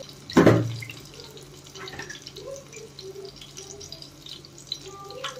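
Chicken chapli kababs shallow-frying in oil, a steady crackling sizzle. A single loud thump comes about half a second in.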